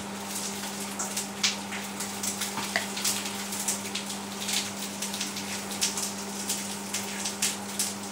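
Breaded tofu slices frying in fat in a pan, sizzling with a steady crackle, over a steady low hum.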